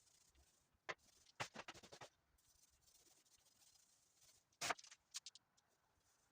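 Faint scratching and clicking: a click about a second in, a quick run of scratches just after, and a sharper scrape past the middle.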